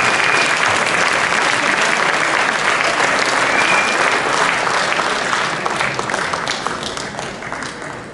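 Crowd applauding steadily, then dying away over the last three seconds.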